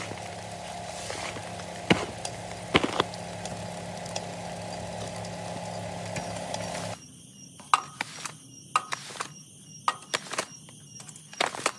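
Washing-machine motor driving a shaking sand sieve, running with a steady hum and two sharp knocks a few seconds in. About seven seconds in the hum stops abruptly, leaving scattered clicks and knocks.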